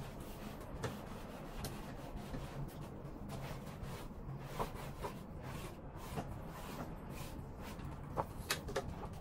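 Fabric rubbing and rustling as a black garment is handled under a handheld garment steamer, with a few light clicks and taps, several near the end, over a steady low hum.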